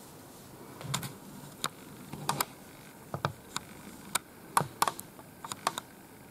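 Thumb taps and key clicks of a mobile phone as a text message is typed: about a dozen sharp, irregular clicks over some five seconds, some in quick pairs.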